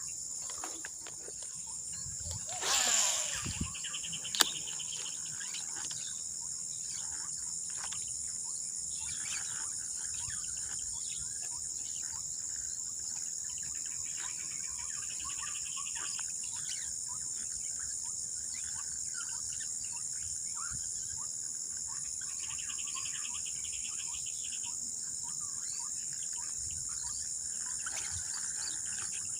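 Steady, high-pitched chorus of crickets and other insects, with scattered bird chirps. A brief rustling swish about three seconds in and a sharp click just after.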